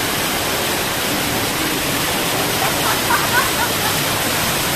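The Rain Vortex, a large indoor waterfall, pouring down in a steady, even rush of water.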